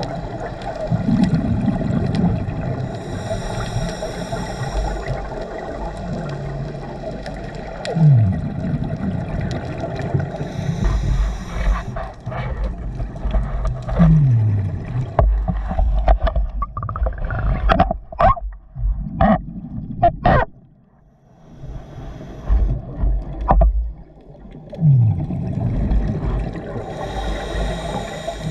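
Scuba regulator breathing heard underwater: a hiss on each inhale and a rush of exhaled bubbles, about three breaths in all. Near the middle there is a run of sharp knocks and short squeaks, around the time the camera swings.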